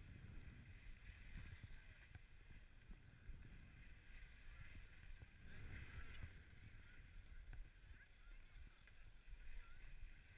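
Faint low rumble of wind on the microphone and skis sliding over packed snow, with faint distant voices of a crowd around six seconds in.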